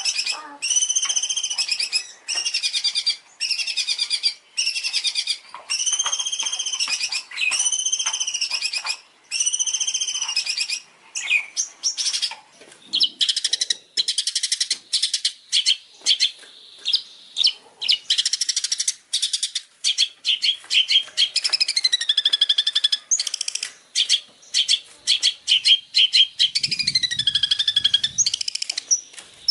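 A songbird singing: phrases of arched, rolling high notes repeated about once a second, then from about eleven seconds in a quicker string of short chirps and sweeping whistles.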